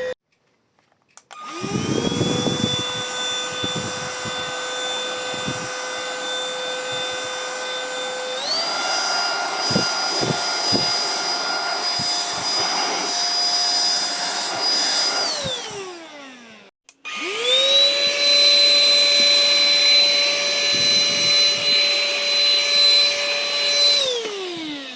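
Rowenta XPert 6.60 cordless stick vacuum motor spinning up and running with a steady whine, then stepping up to a higher-pitched, higher-power speed about eight seconds in, with a few knocks, before winding down. After a short break it starts again at the higher speed and winds down near the end.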